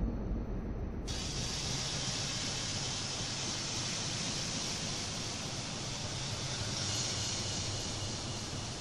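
A steady, even hiss that sets in abruptly about a second in, after a low rumble.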